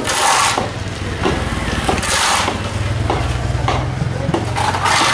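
A vehicle engine running at idle with a steady low hum, over irregular knocks and scrapes of hand tools, a tamper and a shovel, working cold-mix asphalt into a pothole patch. Broad hissing swells come and go about two seconds apart.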